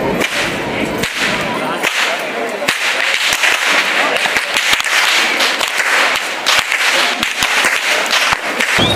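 Several Kandyan perahera whip-crackers (kasakaru) cracking long whips against the air in a rapid, irregular volley of sharp cracks, several a second and often overlapping. Their cracking traditionally heralds the procession coming along the street.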